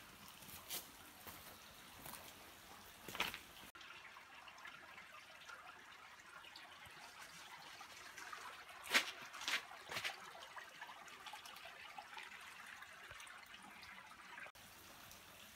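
Faint trickling of a shallow creek, with a few sharp clicks and taps, the loudest about nine seconds in.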